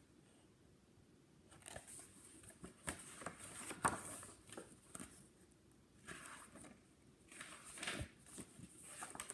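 Pages of a picture book being handled and turned: soft paper rustles and light taps, the loudest about four seconds in.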